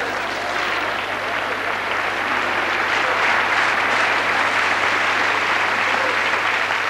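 Large theatre audience applauding steadily after a stand-up joke, swelling a little midway.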